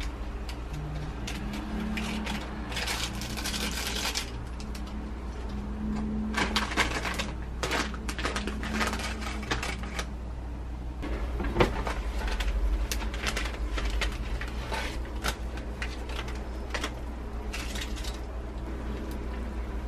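Irregular clicks, knocks and clatter of objects being handled, over a steady low hum.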